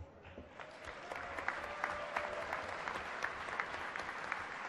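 Audience applauding a speaker's welcome, rising over the first second into steady clapping.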